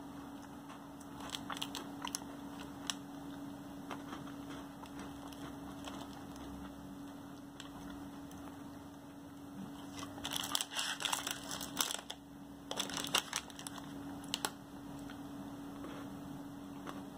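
Pocky chocolate banana biscuit sticks being bitten and chewed: a few sharp snaps in the first few seconds, then bursts of crisp crunching about ten seconds in and again around thirteen seconds.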